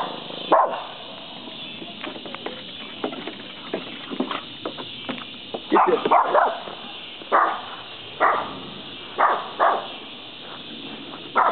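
Shih Tzu barking at a deer: short, sharp alarm barks, a quick cluster about six seconds in, then single barks about a second apart.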